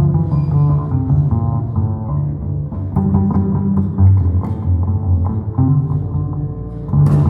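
Live jazz combo playing a tune, with plucked upright bass notes prominent under other pitched instruments.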